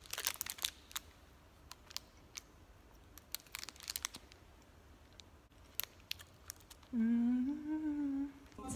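Protein-bar wrapper crinkling and tearing in faint, scattered crackles as it is pulled open. About seven seconds in, a person hums a closed-mouth "mmm" with a wavering pitch for a couple of seconds while eating the bar.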